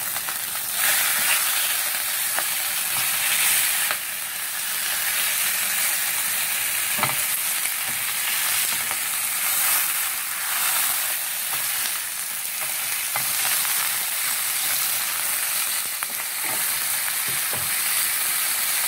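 Pieces of dried, salted milkfish (daing na bangus) sizzling steadily in hot oil in a frying pan, with a few short scrapes and taps of a spatula as the pieces are moved.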